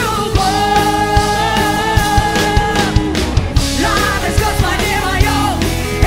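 A live rock-style worship band playing loudly: a woman sings over electric guitar and drums with a steady beat. A long note is held from about half a second in for some two and a half seconds, then the melody moves on in shorter phrases.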